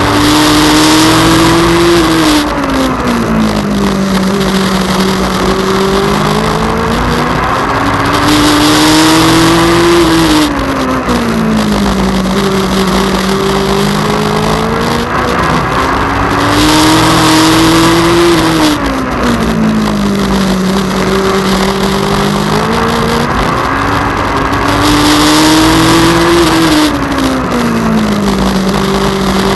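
Legend car's Yamaha four-cylinder motorcycle engine heard on board during racing laps. The engine note climbs as the car accelerates down each straight, then drops and holds lower through the turns, repeating about every eight seconds.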